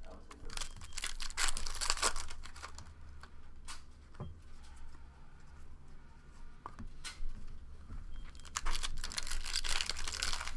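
Foil trading-card pack wrapper being torn open and crinkled, in two spells of ripping and rustling: one in the first couple of seconds and another near the end.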